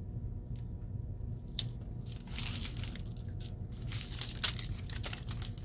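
Metal HVAC duct tape crinkling and rustling as an overlapping strip is laid down and pressed flat by hand, in uneven scratchy bursts with a few sharp ticks.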